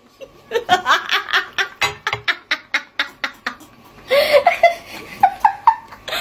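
Women laughing hard together in quick rhythmic bursts of laughter, with a louder burst of shrieking laughter about four seconds in.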